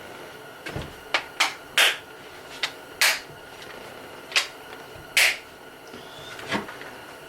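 Irregular sharp clicks and knocks of hard chainsaw parts being handled and set down, about ten over several seconds.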